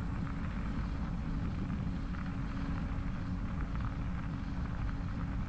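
Steady low rumble of wind on the microphone and bicycle tyres rolling over a wet crushed-limestone trail, with a faint crackle of grit under the tyres and a steady low hum.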